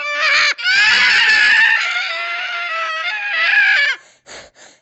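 Cat yowling: a short cry, then one long, loud, wavering cry of about three seconds that cuts off sharply, followed by a few short breathy puffs near the end.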